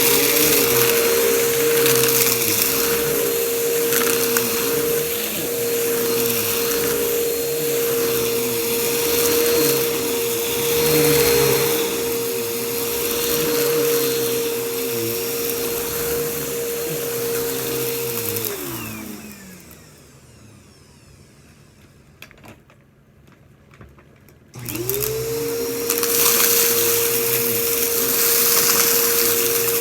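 Vacuum cleaner running with a steady motor whine and crackling as it sucks up crunchy debris. About two-thirds of the way in it is switched off and the whine winds down. A few seconds later it is switched back on and spins up to speed again.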